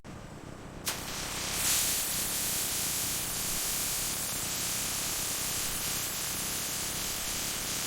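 A steady, even hiss that starts abruptly about a second in and holds.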